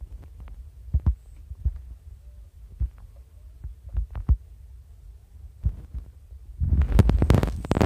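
Handling noise on a handheld microphone: a low rumble with scattered sharp knocks and clicks, then a dense burst of loud crackling and rustling for about a second near the end.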